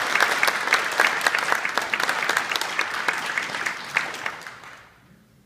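Small audience applauding, the clapping dying away over the last second or so.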